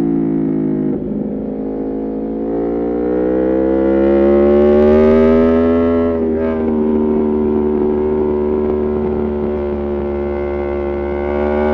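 Aprilia Tuono V4 Factory's V4 engine through an Arrow GP2 exhaust with the dB killer removed, ridden hard on track. The pitch falls as the bike slows, with a rough crackling burst about a second in, then climbs under acceleration and breaks briefly about six seconds in before running on at a fairly level pitch.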